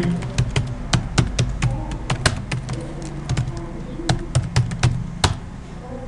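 Computer keyboard keys clicking as a password is typed at a login screen: a run of quick, uneven key presses, with one louder click about five seconds in.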